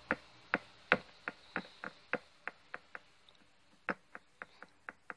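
Small plastic toy figure tapped repeatedly on a hard surface: light clicks about three a second, pausing for about a second after three seconds, then resuming.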